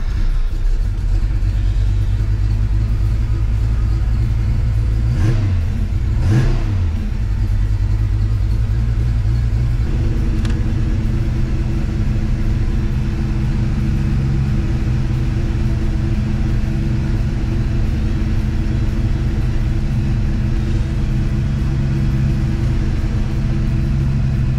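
Ford 5.0-litre V8 of a 1986 Mustang GT running just after starting, heard from inside the cabin. It is blipped twice about five and six seconds in, then settles into a steady idle.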